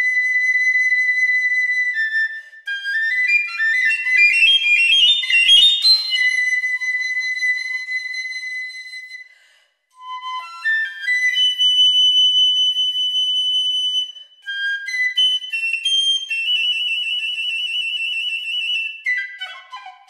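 Solo piccolo playing a bright, high melody with no accompaniment: a fast rising run a few seconds in, a brief pause about halfway, long held high notes, then a trill and a quick falling run near the end.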